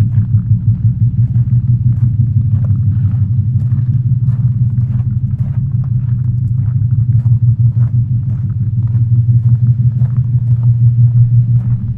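Low, steady hum played from a loudspeaker, with a rapid flutter in level, heard from the middle of a stone circle; faint scattered clicks of footsteps over it.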